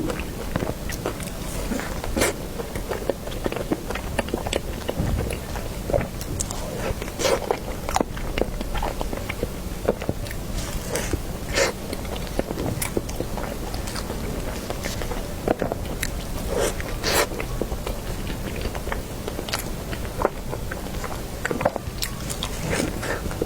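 Close-miked biting and chewing of a small Basque cheesecake, with many irregular mouth clicks and smacks.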